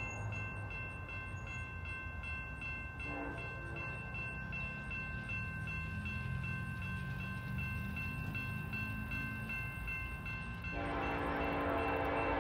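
Grade-crossing warning bell ringing at an even rapid pace while the diesel freight's low rumble grows as it approaches. About eleven seconds in, the locomotive's air horn starts sounding, louder.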